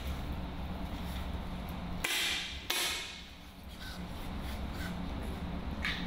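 Two sharp air rifle shots about two-thirds of a second apart, from the 10 m pneumatic match rifles, each ringing briefly in the hall, over a steady low hum.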